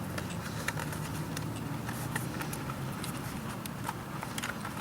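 A bicycle tire being worked back over the rim by hand, with scattered small clicks and rubbing as the stiff new tire's bead is pushed on, over a steady low background rumble.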